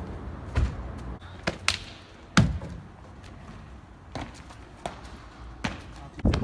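Trainers hitting paving stones as a freerunner lands, dives and runs: a string of sharp thuds and slaps, the loudest about two and a half seconds in.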